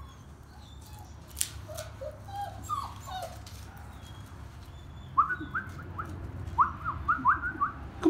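Cockapoo puppies whimpering and whining: a few short falling whines in the first half, then a quick run of about a dozen short high squeaks in the second half.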